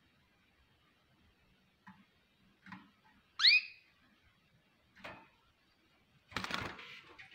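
Crested canary giving one short rising chirp call a little past the middle, with a few faint clicks and a burst of rustling and wing flutter near the end as it moves about the cage.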